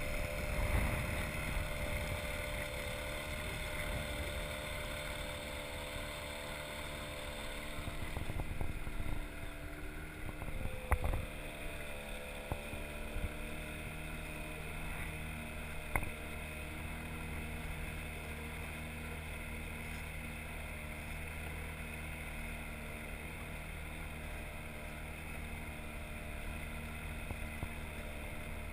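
Small outboard motor running steadily on an inflatable boat under way, with water rushing along the hull; its pitch dips briefly near the middle, where a few sharp knocks come through.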